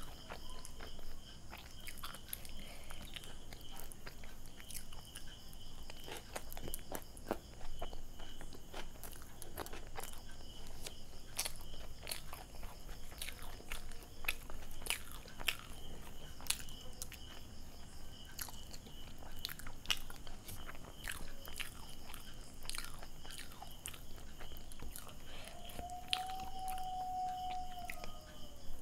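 Close-miked chewing and wet mouth clicks of a person eating pav bhaji (spiced vegetable mash with a soft bread roll) by hand, with many small sharp clicks scattered throughout.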